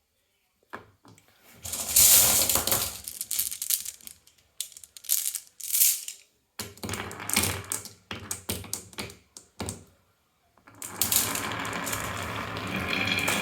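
Marbles rolling and clattering down a wooden marble run, in several bursts of rattling and clacking with short pauses between, then a longer steady rolling rattle from about eleven seconds in.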